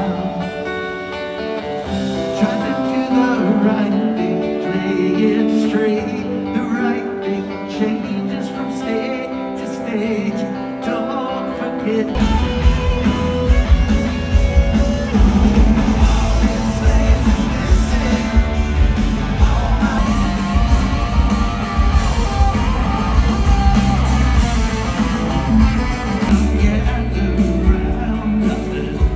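Rock band playing live, with guitar and singing; bass and drums come in about twelve seconds in.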